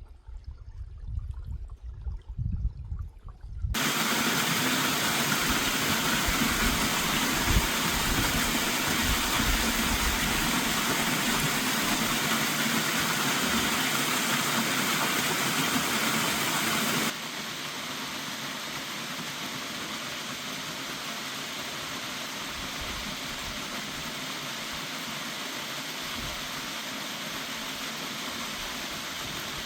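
Steady rushing water of a waterfall, cutting in suddenly about four seconds in and dropping abruptly to a quieter level about seventeen seconds in. Before it, a low, uneven rumble.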